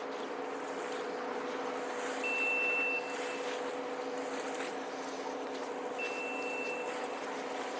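Steady low machine drone, with a single high electronic beep of under a second repeating about every four seconds, twice.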